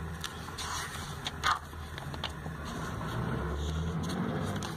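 Glossy paper pages of a printed catalogue being flipped and handled, with a few short paper flicks and rustles in the first two seconds, the sharpest about a second and a half in. Under it runs a steady low hum.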